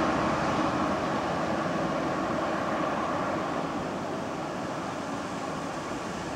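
A car's tyre and engine noise fading slowly as it drives away along the road, over steady street traffic noise.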